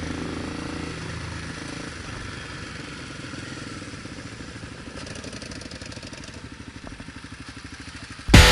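Motorcycle engine idling with an uneven, pulsing beat. Loud guitar rock music cuts in suddenly at the very end.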